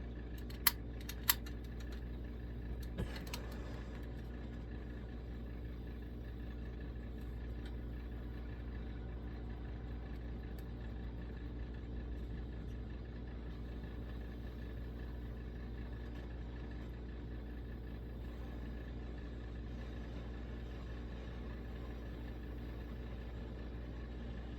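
Two sharp clicks about a second in, then the steady rushing of a Coleman 523 military stove's burner running after lighting with a newly fitted generator.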